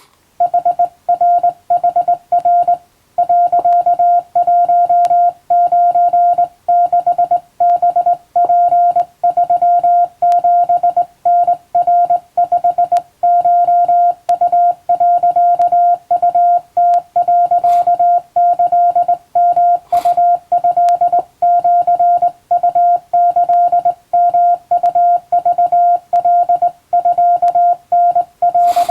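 Hand-keyed Japanese (wabun) Morse code: a single steady mid-pitched beep switched on and off in quick dots and dashes, with short pauses between characters. A few faint clicks sound through it, the clearest near the end.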